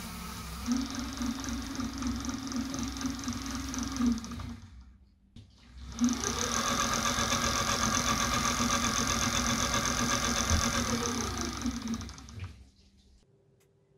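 MY1016 24-volt DC electric motor spinning the scooter's rear wheel through a rubber belt on a bench test, powered through clip leads. It runs steadily, stops about four seconds in, then starts again about two seconds later, whining up to speed, runs steadily, and winds down and stops near the end.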